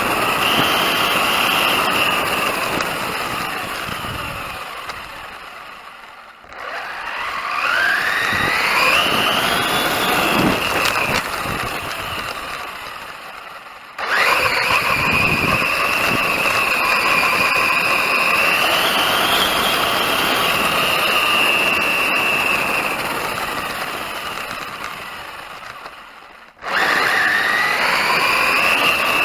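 Brushless electric motor and gears of an FTX Outlaw 1/10-scale RC car whining, the pitch climbing as the car accelerates, holding high at speed, then slowly fading away. The whine cuts back in suddenly at full level three times.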